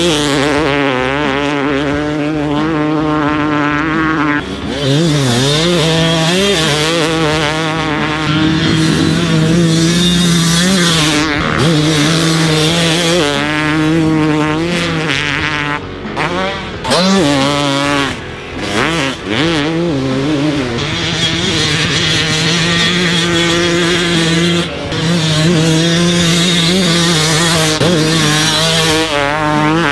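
Single-cylinder two-stroke engine of a Yamaha YZ250 enlarged to 300cc with an Athena kit, ridden hard on a motocross track. It revs high, its pitch repeatedly climbing and falling as the throttle is worked, with a few brief drops off the throttle.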